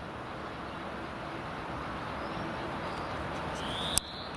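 Steady outdoor background noise, with a faint high rising chirp near the end and a single sharp click about four seconds in.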